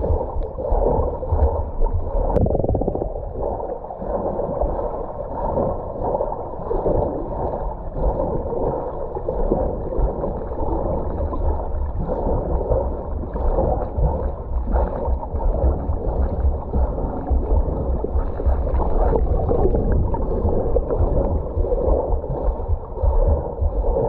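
Swimmer's butterfly (dolphin) kick heard underwater: muffled churning and gurgling of water from the legs, with uneven low pulses.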